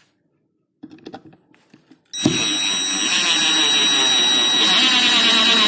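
A few faint clicks, then about two seconds in a Ryobi R18IW3 18-volt cordless impact driver starts suddenly on its first speed setting. Its motor runs with a steady high whine as it drives a long 89 mm screw into wood.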